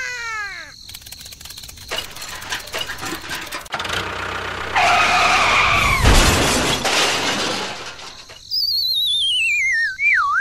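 A string of whistle and tone effects: several quick falling whistles at the start, a rapid clatter of clicks, a held multi-tone sound about five seconds in, and a wavering, falling whistle near the end.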